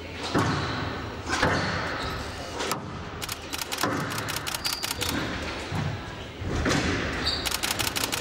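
Squash rally: the ball struck by rackets and smacking into the front wall, several sharp thuds spaced a second or so apart, echoing in a large hall, with footfalls on the court floor between them.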